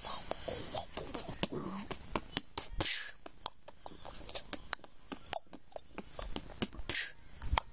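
A boy beatboxing: a quick run of sharp mouth clicks and pops, with hissing snare-like bursts about three seconds in and again near the end.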